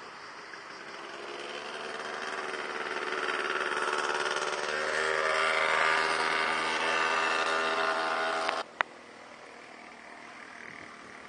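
A motor engine running at a steady pitch, growing louder over several seconds as it comes closer, then cut off suddenly about two-thirds of the way through, followed by a single sharp click.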